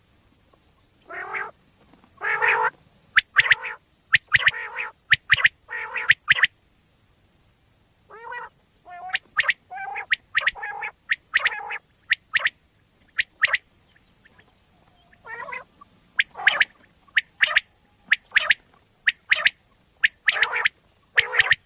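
Common quail calling over and over: short, sharp high notes, often in quick pairs, mixed with lower, rougher calls. There is a pause of about a second and a half partway through, then the calling resumes.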